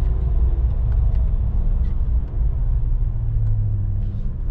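Engine and road noise of a pickup-type tow vehicle pulling a car trailer, heard from inside the cab at speed as a steady low rumble with faint engine tones drifting in pitch.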